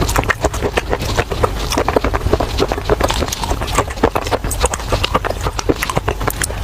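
Close-up crunching and chewing of baked clay pot pieces: a dense run of sharp, irregular gritty cracks and snaps, several a second.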